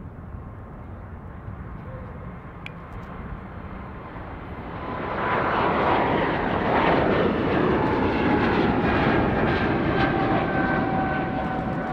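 Airbus A220-300 jet at takeoff power as it lifts off and climbs out, its Pratt & Whitney PW1500G geared turbofans heard. The low rumble swells about five seconds in as the jet passes close, with whining tones that slide slowly down in pitch.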